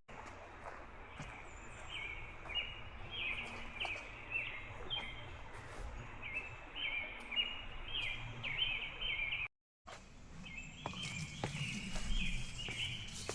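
A songbird singing a long series of short, repeated chirping notes. The sound cuts out completely for a moment near two-thirds of the way through.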